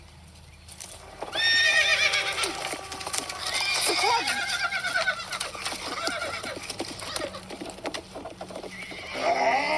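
Horse whinnying loudly about a second in and again a few times after, with hooves clip-clopping.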